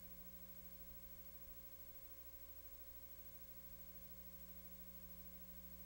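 Near silence: a steady low hum with faint hiss, with no game sounds.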